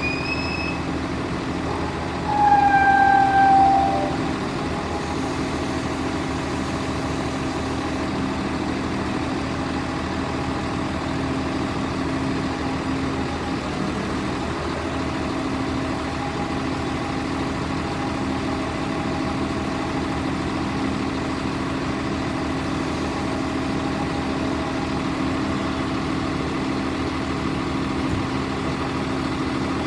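Cummins ISB diesel engine of a wheeled excavator running steadily. A single loud horn blast sounds about two seconds in, lasts about a second and a half, and sags slightly in pitch as it ends.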